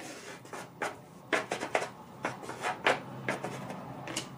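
Hands arranging pieces of makrout dough on a metal baking tray: an irregular run of short taps and knocks, the loudest just before the three-second mark.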